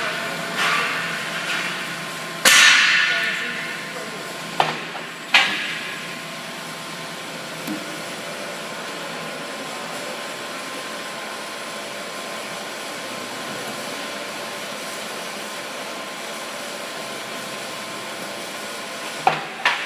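A few sharp clanks of metal striking metal, the loudest about two and a half seconds in with a ringing tail and two smaller ones soon after, then two more near the end, over a steady hum of workshop machinery.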